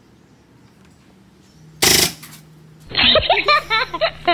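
A toy gun fires a single sharp shot about two seconds in. About a second later a woman bursts into loud laughter that runs on.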